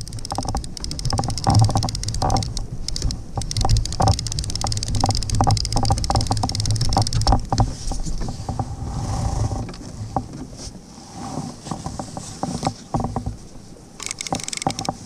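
Conventional saltwater fishing reel being cranked, with many quick, irregular clicks, as a rock cod is reeled up. Under it runs a low rumble that eases about halfway through.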